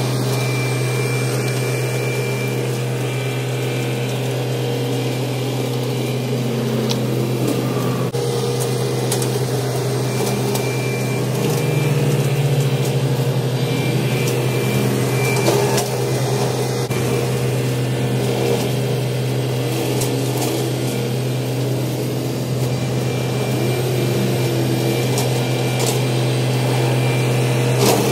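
Kubota tractor's engine running steadily at working speed while brush hogging, a loud constant drone.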